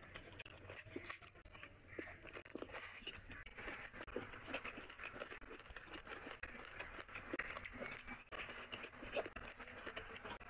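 Close-up eating sounds: fingers squishing and mixing rice with curry and pulling meat apart on a plate, a faint stream of small wet smacks and crackles.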